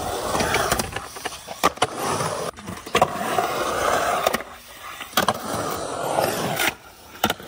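Skateboard wheels rolling on the concrete of a skatepark bowl, the rumble swelling and fading as the rider carves, with a few sharp clacks of the board.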